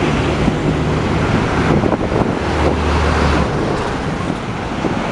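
Diesel trucks and other traffic passing along a highway: a steady engine drone mixed with tyre and road noise. A deeper engine note swells about two and a half seconds in.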